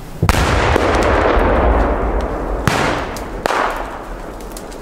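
Large firework salutes (firecrackers) going off: a very loud bang about a quarter second in, with a long rumbling echo, then more sharp cracks about two and a half and three and a half seconds in.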